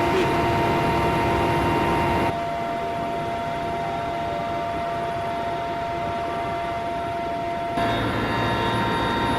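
Steady drone of an aircraft's engine in flight, with a constant whine over a broad noise. The sound drops abruptly about two seconds in and jumps back up near the end.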